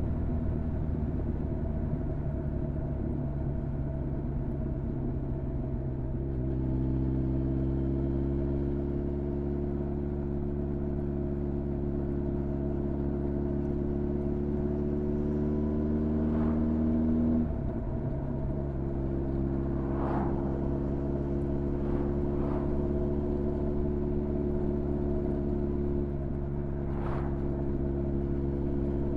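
Honda CB1300's inline-four engine running steadily under way. Its note lifts about a fifth of the way in and climbs slowly, breaks off briefly about two-thirds through, then pulls on evenly.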